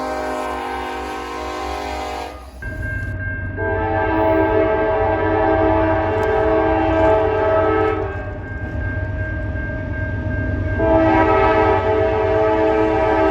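Locomotive air horns sounding in chords. One horn blows until a sudden cut about two and a half seconds in. Then a second train's horn gives two long blasts over a low rumble, the second starting near the end.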